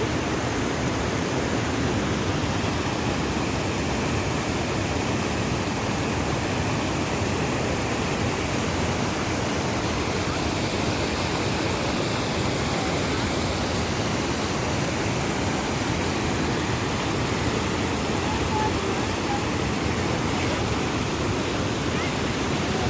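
Fast-flowing water rushing in a steady, even torrent.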